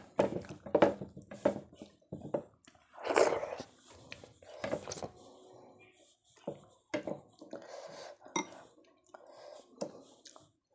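Fingers mixing and scooping soft, wet khichuri on a plate: a string of short squelches and light taps against the plate, with eating mouth sounds between handfuls. The loudest burst comes about three seconds in.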